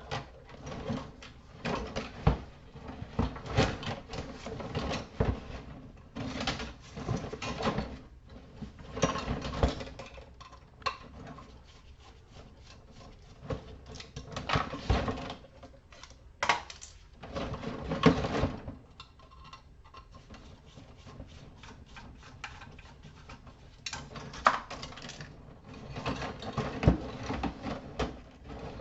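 Metal scrap parts and hand tools clinking and clattering as a fixture is taken apart by hand, in irregular bursts of knocks and rattles with short pauses.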